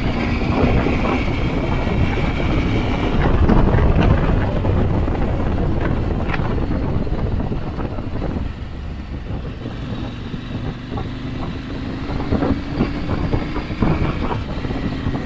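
KTM 890 Adventure R's parallel-twin engine running in third gear, with the tyres crunching and ticking over gravel. The engine eases off and gets quieter about eight seconds in.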